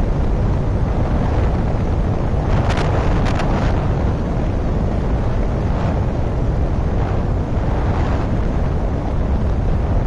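Wind rushing over the microphone of a moving motorcycle at road speed, with the bike's engine and tyre noise underneath. A few short crackles come about two and a half to three and a half seconds in.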